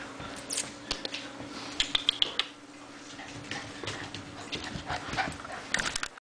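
Six-week-old Bernese mountain dog puppies playing on a wooden floor: claws clicking and pattering, and bodies scuffling. A few short high squeaks come about two seconds in.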